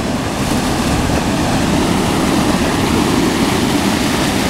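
Water pouring through the gates of a river weir into whitewater below: a deep, steady, loud rush.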